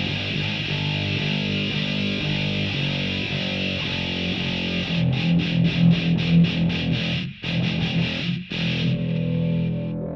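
Heavily distorted electric guitar played through effects, chugging a heavy metal riff for a tone test. Midway it switches to quick, evenly chopped strokes, about six a second, then breaks off twice briefly.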